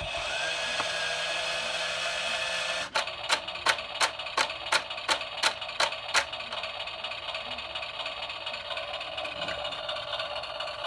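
RadioShack remote-control Brum toy car: a steady electronic tone for about three seconds, then about nine evenly spaced clicks at roughly three a second, then a steady hum. This is from a toy whose starting-handle spinner no longer turns and which will not drive.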